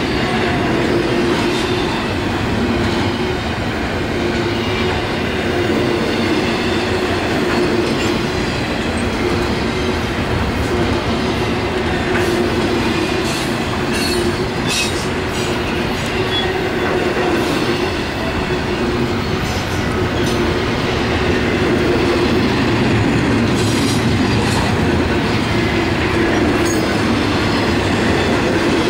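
Norfolk Southern intermodal freight train's container cars rolling past at close range: a steady rumble of steel wheels on rail, with a few sharper clacks about halfway through and again near the end.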